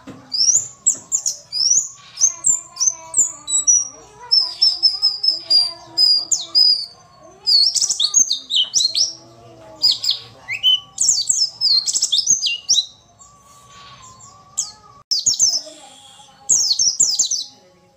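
Female white-eye (pleci) giving rapid clusters of high, downslurred chirping calls, the kind of female call used as a lure to get males singing. The calls pause for about two seconds a little past the middle, then resume.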